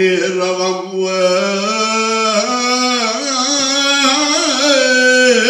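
A man singing one long, wordless, held phrase into a microphone, ornamented with a wavering pitch and stepping up a little about two seconds in.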